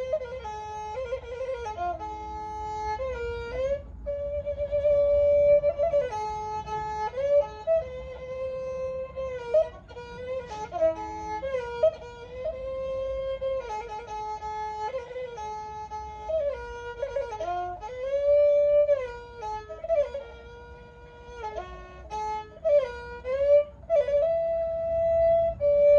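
A Thai bowed fiddle (so) playing a solo melody, one line of sustained notes joined by frequent sliding glides between pitches.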